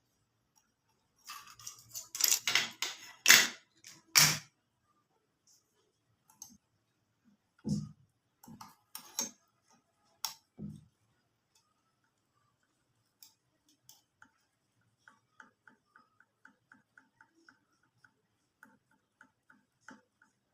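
Clatter and knocks as a sewing machine's metal parts are handled during a repair, then a few single thuds, and later a run of light, even ticks about four a second.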